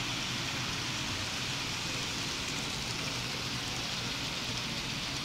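HO scale model freight cars rolling past on the track, a steady hiss over a low rumble.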